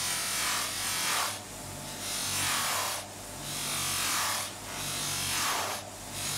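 Hand sanding: slow back-and-forth rubbing strokes, about one every second and a half, each stroke sweeping down in pitch.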